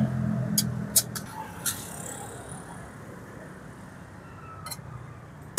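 A metal ladle clinks and scrapes against an aluminium wok as noodles and broth are scooped onto plates. There are a few sharp clinks in the first two seconds and a couple more near the end, over a steady low background rumble.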